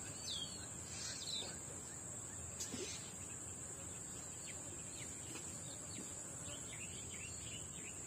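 Faint outdoor ambience: a steady high-pitched insect drone, with scattered short bird chirps.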